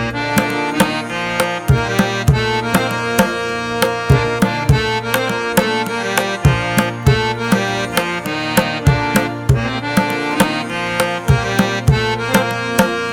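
Background music: a quick, steady hand-drum rhythm over held melodic notes.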